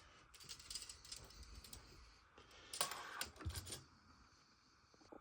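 Faint scattered clicks and soft knocks of objects being handled, with a small cluster of louder clicks and a low thud about three seconds in.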